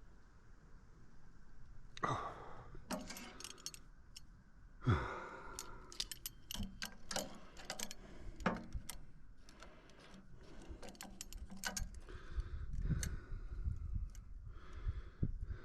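Scattered clinks, clicks and knocks of objects being handled, with louder knocks about two and five seconds in.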